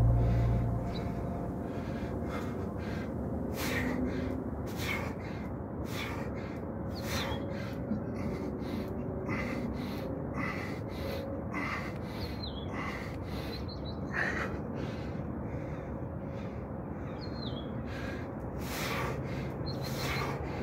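A man breathing hard through push-ups, with short forceful exhales or gasps about once a second, irregularly spaced.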